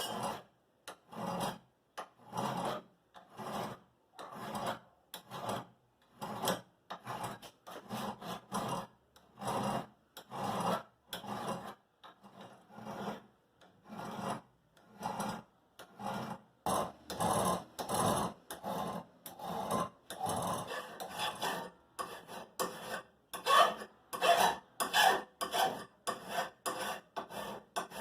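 Hand file rasping on a steel knife blade in repeated back-and-forth strokes, about two a second, getting louder in the second half.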